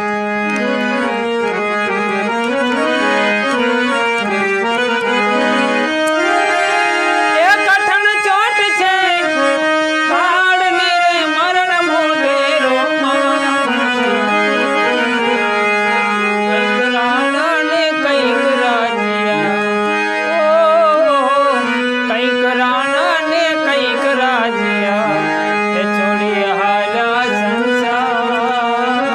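Harmonium playing a devotional bhajan tune in held, stepped notes. About seven seconds in, a singing voice joins over it in wavering, ornamented lines.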